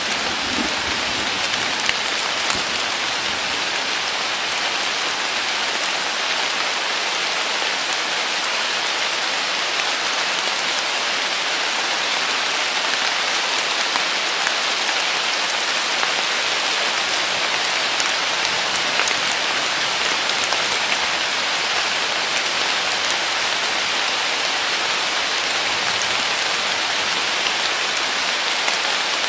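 Heavy summer rain falling steadily, an even hiss with a few sharper drop ticks scattered through it.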